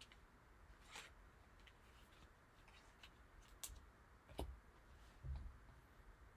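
Near silence with a few faint, short clicks and rustles of trading cards being handled.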